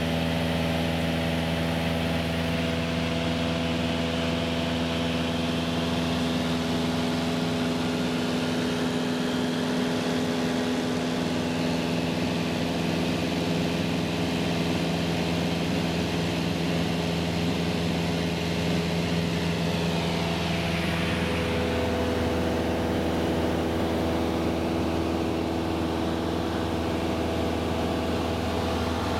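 Cessna light aircraft's piston engine and propeller droning steadily in cruise flight, heard from inside the cabin. Its tone shifts slightly about two-thirds of the way through.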